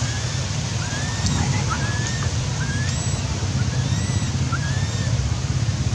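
Newborn long-tailed macaque crying: a string of short, high calls that rise and then level off, about one a second, over a steady low rumble.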